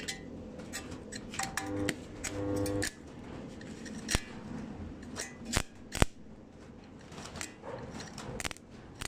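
Stick (arc) welding: the electrode arcing against the steel plate at the foot of a square steel tube, with an irregular crackle and sharp pops. Two short buzzes come in the first few seconds, and the loudest pops come in the middle.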